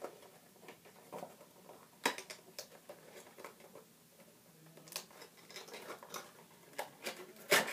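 Plastic toy packaging being cut and worked open with scissors: scattered small snips, clicks and crinkles. A sharper click comes about two seconds in and the loudest near the end.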